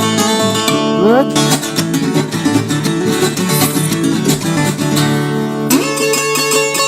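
Intro music: fast plucked acoustic guitar with quick rhythmic picking and sliding notes.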